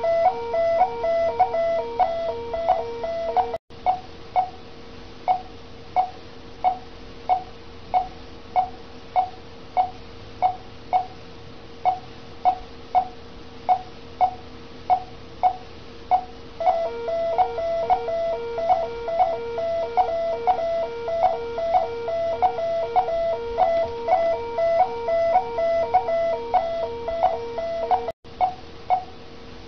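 Bedside patient monitor beeping steadily at heart-rate pace, about three beeps every two seconds, the pulse tone of a monitored, ventilated patient. For the first few seconds and again through the second half, a second rapidly pulsing alarm tone sounds along with it. The sound cuts out abruptly twice.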